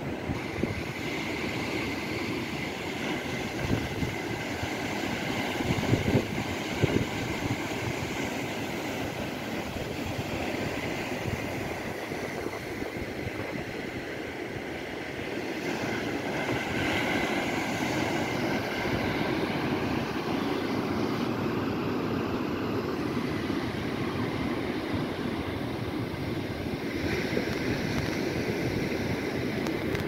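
Sea waves breaking and washing in a steady, continuous rush, a little fuller in the second half, with wind buffeting the microphone underneath.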